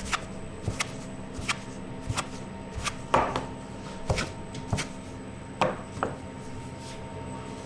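Plastic dough scraper chopping through sourdough dough and knocking on a floured wooden bench: about ten sharp, irregular knocks. A steady low hum runs underneath.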